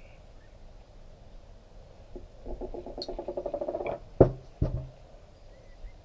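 Handling noise from a motorcycle front fork being worked on with a screwdriver: a fast rattle of small clicks for about a second and a half, then two sharp knocks.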